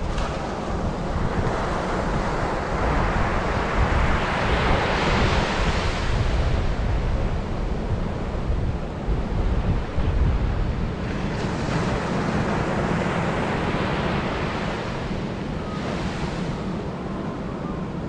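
Surf breaking and washing up a sandy beach, swelling louder about five seconds in and again around thirteen seconds, with strong onshore wind buffeting the microphone as a steady low rumble.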